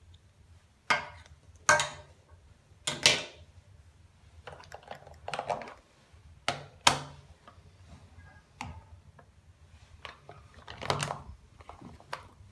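Dishes and utensils being handled in a kitchen: a series of sharp clinks and knocks with short ringing tails, the loudest about a second in, just before two seconds, at three seconds, twice near seven seconds and once near eleven seconds.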